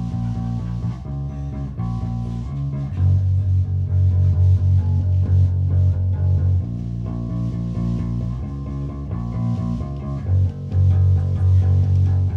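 Electric bass guitar playing a song's opening riff live through an amplifier: sustained low notes that change every second or two, with no drums.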